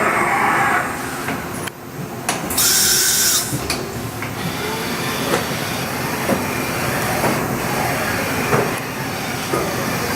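Haas VF-2 CNC vertical machining center running through its cycle: steady machine noise with light ticks and knocks, and a short loud hiss of air about two and a half seconds in.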